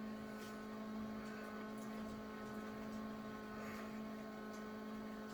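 Steady, faint electrical hum at an even pitch, with a few higher tones over a light hiss.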